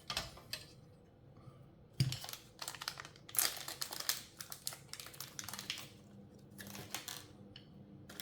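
Hands handling a PCIe riser cable and steel vertical GPU mount bracket while fitting them together: irregular small clicks and crinkling rustles, busiest a couple of seconds in.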